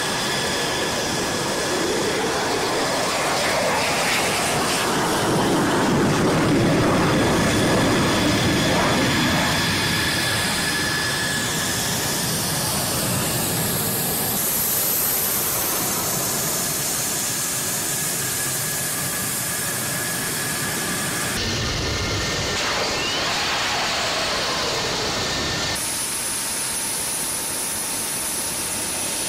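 Fighter jet engine noise, swelling to its loudest about six to eight seconds in, with a steady high turbine whine in parts and sudden changes in tone where shots are cut together.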